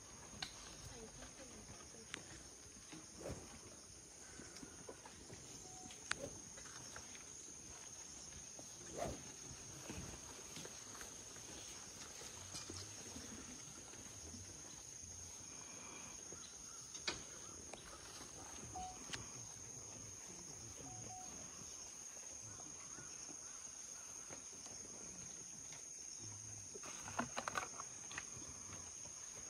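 Insects droning steadily on one high tone, with faint distant voices and scattered soft clicks; a quick run of sharp clicks comes near the end.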